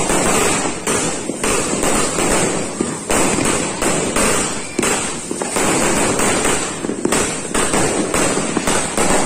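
Fireworks going off at close range in a dense, continuous string of bangs and crackles, with no pause.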